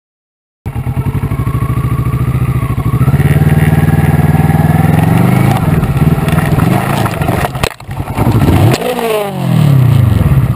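Kawasaki Versys 650 parallel-twin engine running hard in low gear over rough ground, the revs rising about three seconds in. Near the end come a few sharp knocks, then the engine revs up and falls away again.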